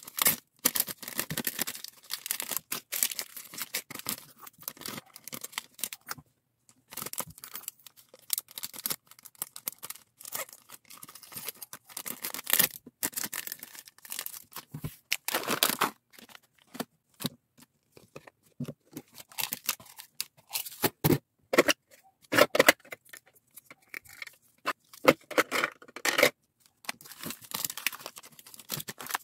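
Thin plastic packing bags crinkling and rustling in the hands as fused-bead keychains are slipped in and the bags are handled. The crackles come in irregular bursts with short pauses between them.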